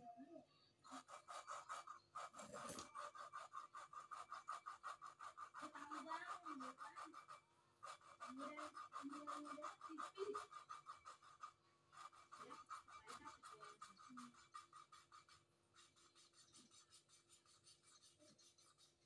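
Engine valve being lapped into its seat in a cylinder head: a quiet, rapid, even gritty rasping as the valve is twisted back and forth. It stops briefly twice and fades away near the end.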